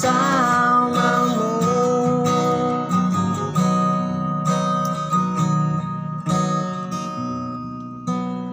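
Strummed acoustic guitar accompanying a singer who holds out the last word of a line about a second in; the guitar then plays on alone and grows quieter near the end.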